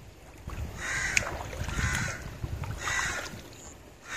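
A crow cawing three times, about a second apart, over a low rumble.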